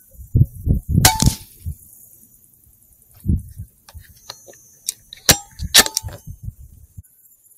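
Sharp metallic clanks with a short ring, a pair about a second in and another pair around five to six seconds, among dull low knocks: handling noise on a rifle carrying a Pulsar Thermion thermal scope.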